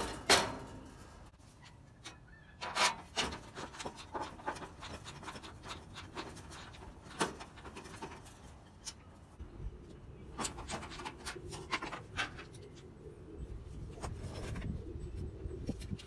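Scattered clicks and knocks of sheet-metal gas grill parts being handled and fitted during assembly, over a low rumble.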